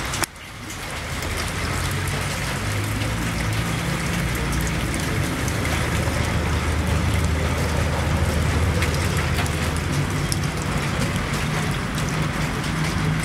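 Hail falling: a steady hiss of small hailstones striking the grass, paving and roofs, with many scattered sharp ticks. A low steady rumble runs beneath it.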